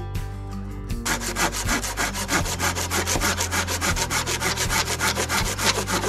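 Small folding handsaw cutting through a fallen dead log, in quick, even back-and-forth strokes that start about a second in.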